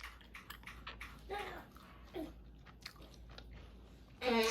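Eating sounds: a run of small mouth clicks and smacks, with a couple of short vocal sounds and a brief louder voiced sound near the end.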